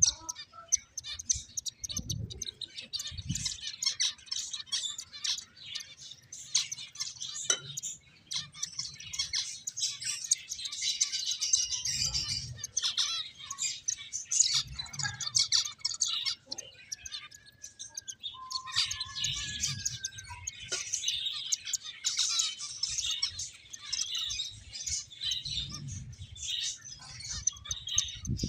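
Several finches chirping busily in rapid, overlapping short notes, with a few soft low thuds now and then.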